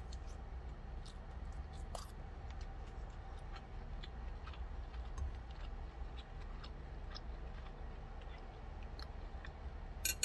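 A person chewing food, with faint scattered clicks through the chewing; right at the end, a few sharp clinks of metal chopsticks against a ceramic plate.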